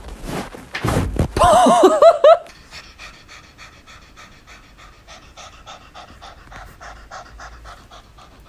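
A dog panting quickly and rhythmically, about four breaths a second, after a loud wavering, warbling sound in the first two seconds.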